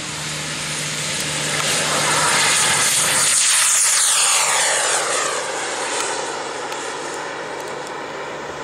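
Radio-controlled model jet taking off and passing close: a rushing jet whine that builds to its loudest about three to four seconds in, then drops in pitch as the plane climbs away, fading somewhat near the end.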